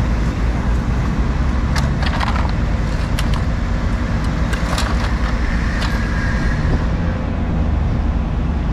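Steady traffic noise of cars going by on a multi-lane highway, with a handful of sharp clicks and knocks between about two and six seconds in.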